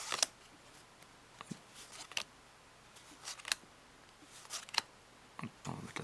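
Bicycle playing cards being laid one at a time onto a pile: a string of short, sharp paper clicks and snaps, about one or two a second, some in quick pairs.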